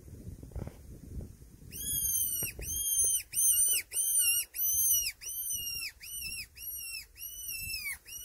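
Fox whistle blown in a run of short, high squealing calls, about two a second, each dropping in pitch at its end: a rabbit-distress call used to lure foxes. The calling starts about two seconds in, after some low rustling.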